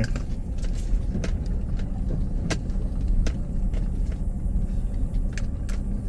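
Low, steady rumble of a vehicle driving slowly, heard from inside the cabin, with sharp clicks and rattles at irregular moments as it goes over rough ground.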